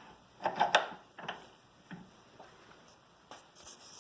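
A few light knocks and clicks of handling, with a cluster of them about half a second to a second in and single weaker ones after.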